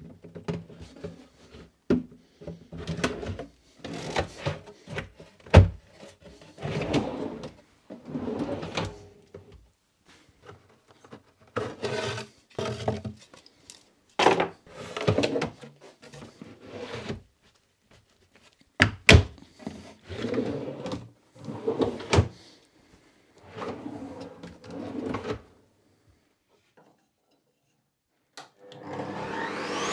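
OSB drawers being slid in and out on metal full-extension soft-close drawer slides and knocked into place: a string of short rolling runs, thunks and sharp clicks with pauses between them. Near the end a table saw motor switches on and spins up with a rising whine.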